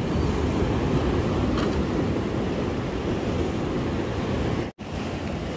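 Steady low rumble of wind on the microphone and waves washing, with no distinct events; the sound drops out for an instant near the end.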